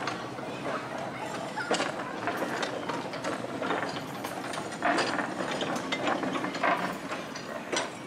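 Miniature railway ride-on coaches rolling slowly along the track, their wheels and couplings giving irregular clicks and clanks over a low rumble.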